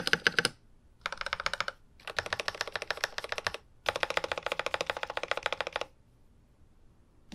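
IQUNIX ZX75 Gravity Wave mechanical keyboard with TTC Speed Silver linear switches being typed on fast, in four bursts of rapid keystrokes with short pauses between. The typing stops about six seconds in.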